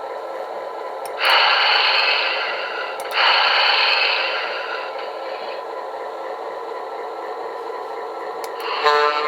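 QSI Maxx Traxx model-train sound system playing recorded diesel locomotive effects through a speaker. An idling diesel hum runs throughout, with two loud hisses about one and three seconds in, each fading away. A single-chime horn sounds briefly near the end.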